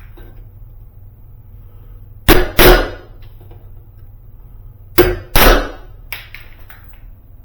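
Hammer blows on a hollow metal door: two pairs of sharp strikes a few seconds apart, then a lighter tap, each ringing briefly.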